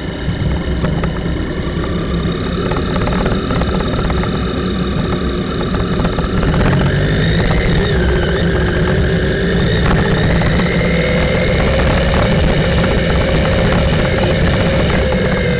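Motorcycle engine running while riding, its pitch climbing from about halfway through as it speeds up and dropping again near the end, over a steady low rumble.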